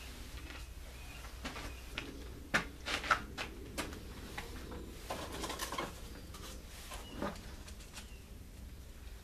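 A pigeon cooing in the background, with a few sharp knocks about two and a half and three seconds in and a short clatter around five to six seconds.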